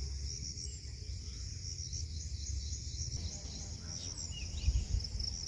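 Insects chirping in a steady, high, pulsing trill, over a low rumble, with a few faint bird chirps about four seconds in.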